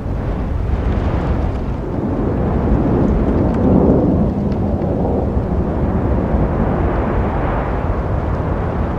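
Road traffic noise: a steady low rumble of passing vehicles, swelling to its loudest about four seconds in as one goes by close.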